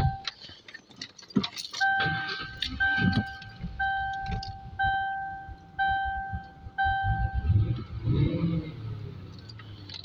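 A Mercury Cougar's dashboard warning chime ringing six times, about once a second, each tone held for most of a second. Clicks, knocks and a jangle of keys from handling in the cabin come between the chimes, with a low rumble near the end.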